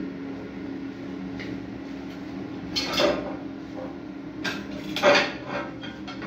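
A few sharp clattering knocks of hard objects, the loudest about three seconds in and again about five seconds in, over a steady low hum.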